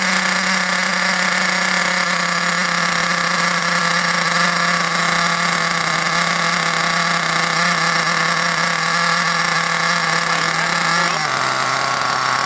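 Ansmann Virus 2.0 BigBlock .28 two-stroke nitro engine running steadily on a slightly opened throttle, being run in on a rich mixture. Its pitch drops about a second before the end as the engine slows.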